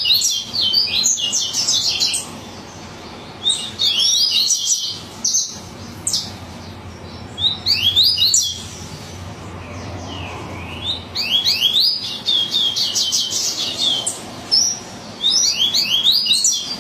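Double-collared seedeater (coleiro) singing the Bahian (baiano) song type, a string of fast rising chirps. The phrases are each a second or two long, repeated with short pauses.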